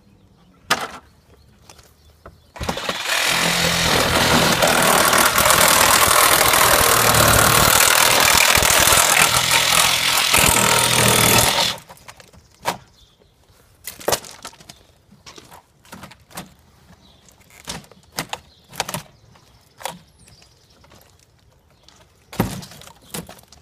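A cordless power tool runs for about nine seconds, cutting into the old window frame, starting about three seconds in and stopping abruptly. After it stops, scattered short knocks and taps as the frame is worked loose by hand.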